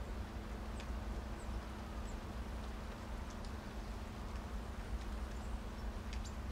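Rain ambience: a steady low rumble and faint hum, with scattered soft ticks.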